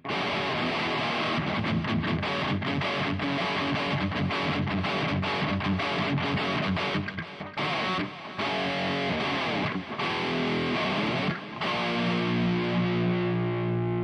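Electric guitar played through the Mooer GE 150 multi-effects on its 'Beast Slo100 B' preset, a high-gain distorted amp model: busy riffing with a few short breaks, then a chord held and left ringing near the end.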